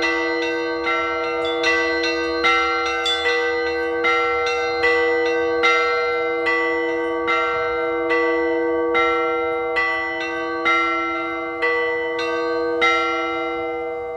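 Orthodox-style bell ringing (zvon) on a set of six Vera-foundry bells: the higher bells are struck in a repeating pattern about once every 0.8 s, over the steady hum of the lower bells. The strikes space out slightly near the end, and the last one is left ringing.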